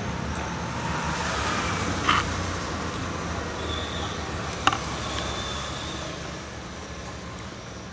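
Steady road traffic noise from passing vehicles that fades slightly toward the end, with two short clicks, about two seconds in and near the middle.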